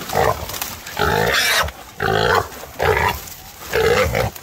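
Feral hog squealing in five harsh bursts, about one a second, while a catch dog holds it.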